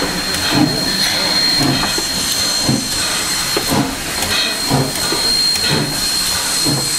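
Sierra Railway No. 3, a 4-6-0 steam locomotive, hissing steam as it rolls slowly past, with a low rhythmic beat about once a second and a thin steady high tone over the hiss.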